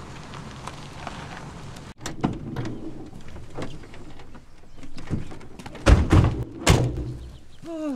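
Doors of an early-1950s Mercury sedan being opened and shut, with scattered clicks and knocks and two loud slams about six and seven seconds in. Before that a steady low hum of the car cuts off abruptly about two seconds in.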